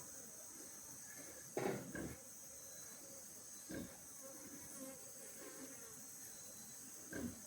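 Honeybees buzzing around an open hive: a faint, steady hum, broken by a few short soft noises about one and a half seconds in, near four seconds and near the end.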